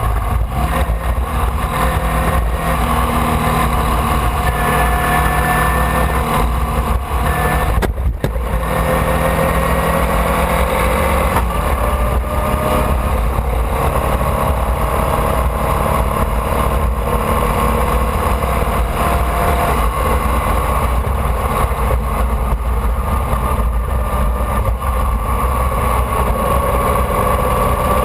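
Formula Vee's air-cooled Volkswagen flat-four engine running steadily, heard from on board, its pitch rising and falling gently. There is a brief drop-out in the sound about eight seconds in.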